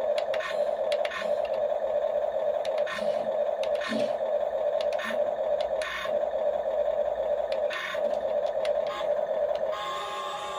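Small electric motors and plastic gearboxes of a Huina 1535 RC excavator whirring, stopping and starting every second or so with small clicks as it is driven.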